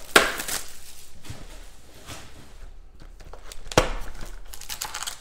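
Hands handling a cardboard trading card box and its foil-wrapped pack on a tabletop. There is a sharp knock just after the start and another about four seconds in, with light clicks and rustling between.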